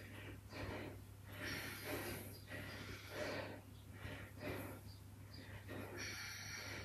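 A person breathing hard from exertion during a set of exercise, faint quick puffs of breath about once every half second to a second.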